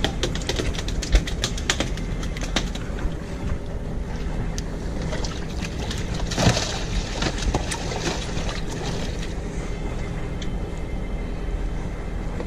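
Boat engine running steadily with a low hum. Over the first few seconds there is a quick run of sharp clicks and knocks, and a single louder knock comes about six and a half seconds in.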